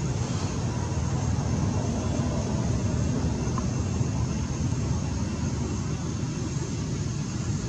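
Steady low rumbling background noise with a fainter hiss above it, even throughout with no distinct events.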